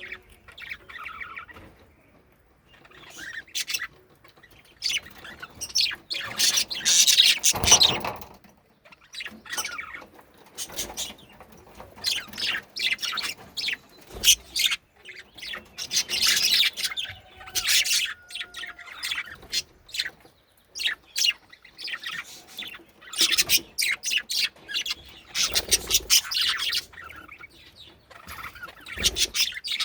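Pet budgerigars chirping and chattering in short bursts of quick, high notes, with a few soft low thumps in between.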